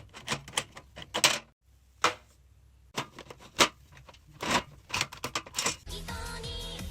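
Irregular sharp clicks and taps of small objects being handled on a desk. Background music starts about six seconds in.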